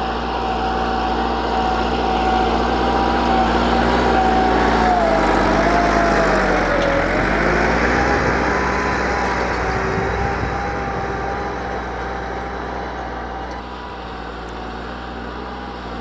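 Massey Ferguson 375 tractor's four-cylinder diesel engine running under load as it pulls a spring-tine cultivator through dry soil. It grows louder as the tractor passes close about halfway through and fades as it moves away, with a brief dip in pitch about six seconds in.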